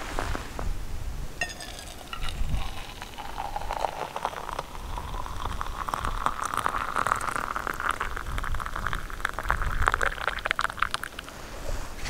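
Chai poured from a camping kettle into a steel mug, the pouring note rising steadily in pitch as the mug fills. A short ringing tone comes just before the pour begins.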